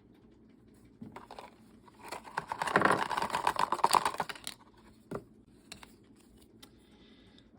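Blind-box packaging being handled. The wrapper crinkles in a dense run of crackles for about two and a half seconds in the middle, with a few single clicks and taps before and after.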